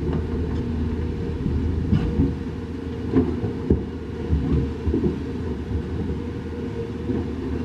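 Heavy diesel machinery running steadily with a deep rumble, with several sharp metallic knocks and clanks over it.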